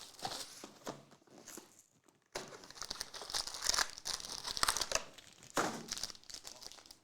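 Plastic wrapping of Chronicles basketball card packaging being torn open and crumpled by hand. The crinkling comes in spells, with a short pause about two seconds in, denser crinkling after it, and an abrupt stop at the end.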